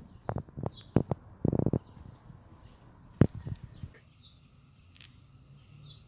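A parrot's beak tapping and nibbling on the camera at very close range: a quick run of sharp taps with a short rattle about a second and a half in. The taps stop near the middle, leaving faint bird chirps.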